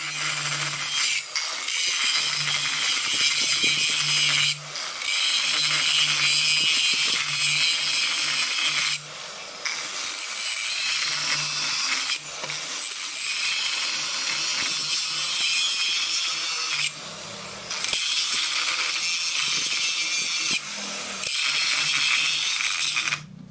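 Abrasive grinding of a steel truck axle-housing tube, a loud harsh grinding hiss. It lets up briefly about five times as the tool is eased off and put back on the metal.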